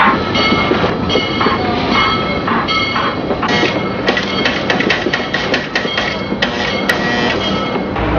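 Model electric train running on metal track: a steady mechanical rattle, with a rapid clatter of clicks through the second half.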